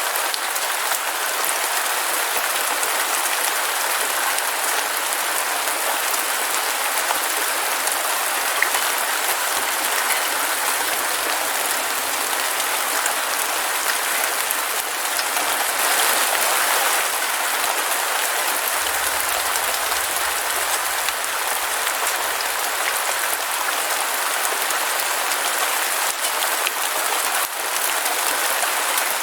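Heavy rain falling steadily: a dense, even hiss of many drops with fine crackling patter.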